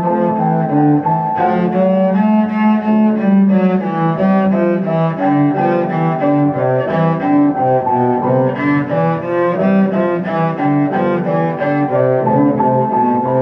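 Cello bowing a sonata melody with piano accompaniment, a continuous run of changing notes.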